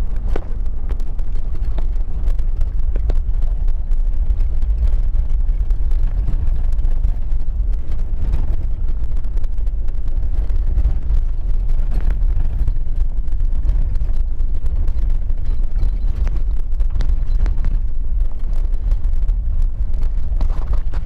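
Inside a vehicle's cabin on an unsealed dirt track: a steady low rumble of engine and tyres, with frequent short knocks and rattles from the rough surface.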